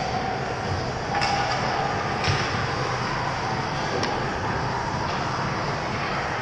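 Ice hockey rink ambience: a steady rush of arena noise with skaters on the ice, broken by a few sharp clacks about one, two and four seconds in.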